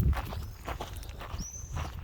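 Footsteps on a hard surface at a steady walking pace, about two steps a second, the first one the loudest. A bird gives a short high chirp about two-thirds of the way through.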